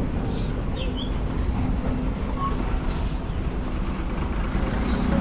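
Steady rumble of passing road traffic, with vehicle engines and tyre noise.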